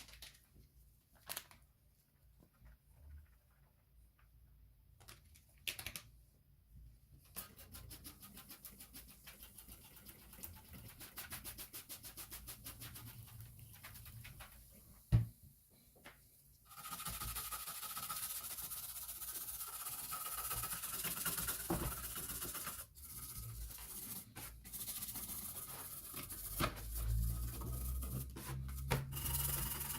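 Hand work on a small hard part: scattered clicks, then quick, even scraping strokes from about seven seconds in. From about halfway through comes a louder, steadier rasping noise with a faint whine in it.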